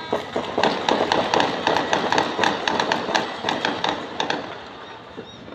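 A rapid, irregular string of firecracker pops, several a second, that dies away about four and a half seconds in.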